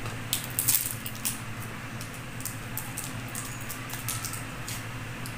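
Small plastic sweet wrapper of a Nano Nano Milky candy crinkling as it is unwrapped by hand. The crackles come thickest in the first second or so, then thin out to scattered crackles.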